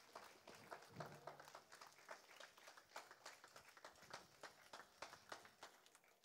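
Faint scattered applause, irregular handclaps that thin out and fade near the end.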